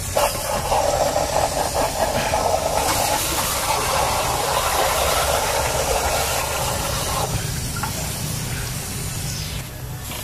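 A pressurised jet hissing steadily as it sprays over a bare, wet Proton Iswara engine block during cleaning, with a low steady hum underneath.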